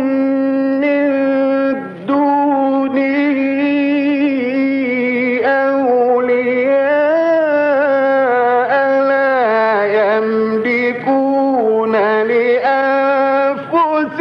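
Male Quran reciter chanting in the ornate, melodic mujawwad style: one long phrase of held notes that bend and waver with vocal ornaments, with a short breath about two seconds in.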